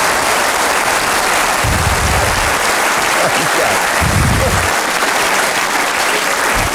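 Studio audience applauding steadily after a joke's punchline.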